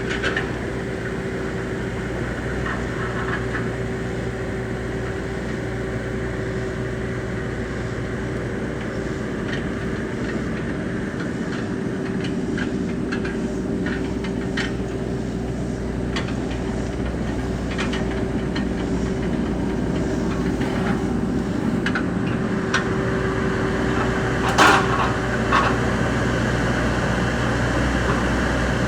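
Bobcat E26 compact excavator's engine running steadily while it drags a grading blade over the ground, with scattered knocks and one louder knock about 25 seconds in.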